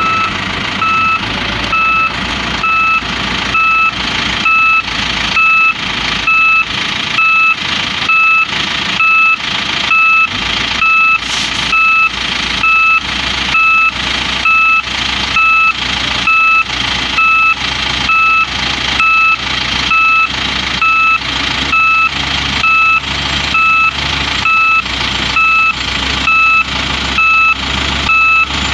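A SEM 917 motor grader's diesel engine runs steadily under a reversing alarm that beeps evenly about once a second.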